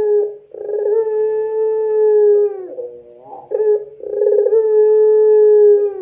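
Puter pelung, a long-voiced strain of Barbary (ringneck) dove, giving its drawn-out cooing call: two long held notes of about two seconds each, each bending down in pitch at its end, with a few short notes between them.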